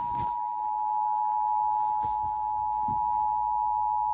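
Emergency Alert System two-tone attention signal: a steady, unbroken two-note electronic tone announcing an alert, here a required monthly test.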